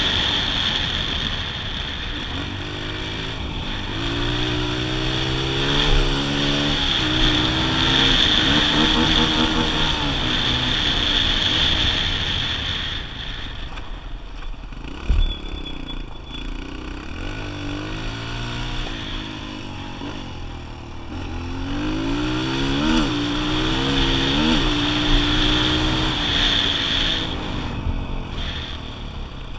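Kawasaki KLX125's single-cylinder four-stroke engine out on the road, its pitch climbing and dropping again and again as the rider accelerates, shifts and rolls off the throttle. There is a single sharp knock about halfway through. The engine winds down near the end as the bike slows.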